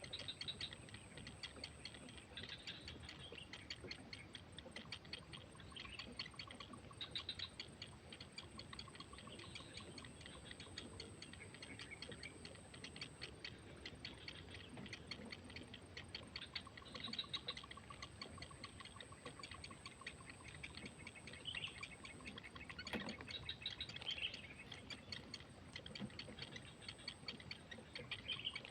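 Wild ambience: a fast, even ticking insect chorus with a thin, steady high whine, and short bird chirps every second or two.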